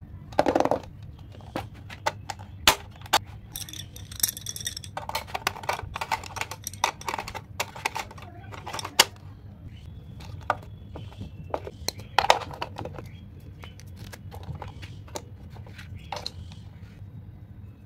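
Plastic pencil case being opened and filled with pens, erasers and sharpeners: irregular sharp plastic clicks, taps and short rattles as parts snap open and items are set into the compartments, over a low steady hum.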